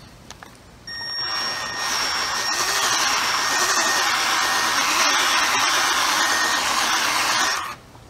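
Cordless 12-volt variable-speed polisher buffing scratches out of motorcycle clear coat. Its motor starts about a second in, settles into a steady high whine, and cuts off suddenly near the end.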